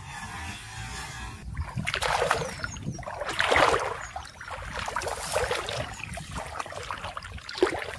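Shallow water splashing and sloshing in irregular surges, loudest about three and a half seconds in, after an even hiss in the first second and a half.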